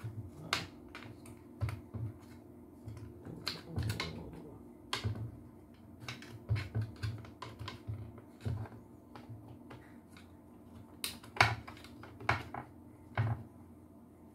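Irregular small clicks and taps of hands handling the plastic housing and wire connections of a vacuum cleaner motor, over a faint steady low hum.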